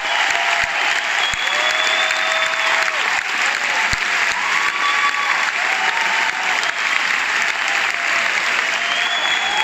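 A large audience applauding steadily, with cheering voices calling out over the clapping.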